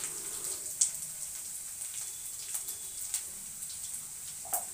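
Tempering of chopped garlic, curry leaves, mustard and cumin seeds sizzling in hot oil in a kadhai: a steady hiss with scattered crackles and pops.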